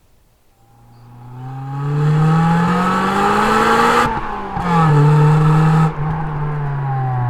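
Honda Prelude SiR Spec S's red-top H22A four-cylinder VTEC engine pulling hard as the car approaches, its note climbing in pitch. About four seconds in, a gear change breaks the sound and the pitch drops. The engine pulls again, then is cut off sharply about six seconds in and the note falls away.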